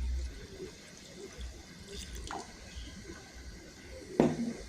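Water poured from a glass into a saucepan, splashing and dripping, then one sharp knock near the end as something is set down.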